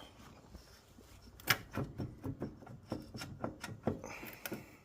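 Irregular series of sharp metal clicks and taps as the cylinder head of a Polaris RZR 800 engine is worked loose and lifted, the loudest tap about a second and a half in, with a short scraping sound near the end.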